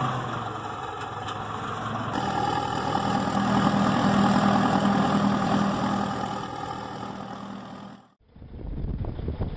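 Heavy machine's diesel engine running steadily, a little louder from about two seconds in; it cuts off abruptly just after eight seconds and gives way to gusty wind rumble on the microphone.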